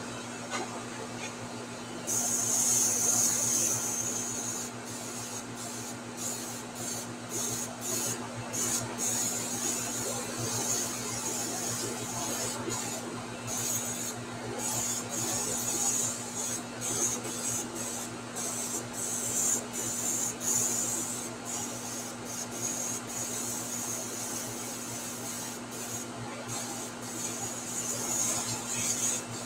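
Airbrush hissing as paint is sprayed. It starts about two seconds in and is broken by many brief pauses as the trigger is let off and pressed again. A steady low hum runs underneath.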